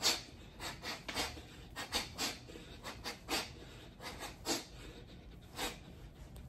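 Short, sharp exhaled breaths timed with shadowboxed elbow strikes, roughly two a second, with a pause of about a second just after the middle.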